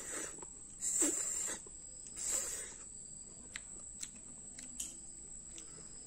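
Two drawn-out slurping sucks, about a second and two and a half seconds in, as cooked small snails are sucked out of their shells by mouth, followed by a few faint short clicks.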